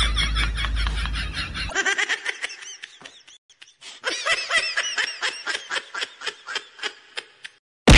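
Rapid, high-pitched laughter, a run of quick giggles that thins out about halfway and picks up again, ending with one sharp knock.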